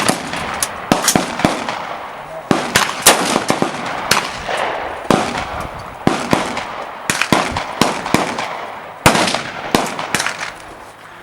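AR-15 rifle gunfire: many sharp, loud shots at irregular intervals, some in quick pairs, each trailing off in a short echo.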